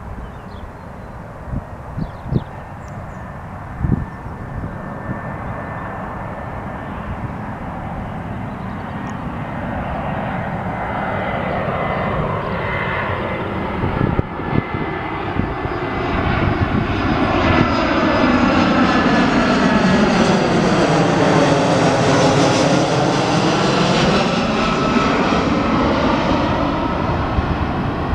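easyJet Airbus A320-family jet airliner on approach to land, passing overhead: the jet engine noise builds from about ten seconds in, grows loud and sweeps in pitch as it passes, and stays loud near the end. Short gusts of wind knock the microphone in the first few seconds.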